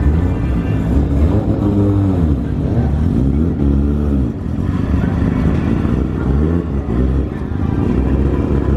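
Car engines running at a race circuit with a steady low rumble, their engine note rising and falling several times as cars rev or pass.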